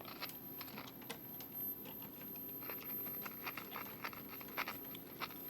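Faint, irregular clicks and crackles over a steady low hum and a thin, high, steady whine from a powered-up vintage vacuum-tube TV chassis. The set's audio section is live and answering.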